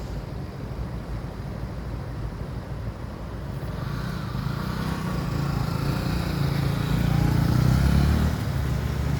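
City road traffic with a steady low engine rumble; a vehicle approaches, gets louder with its tyre and engine noise, passes close about eight seconds in, and fades.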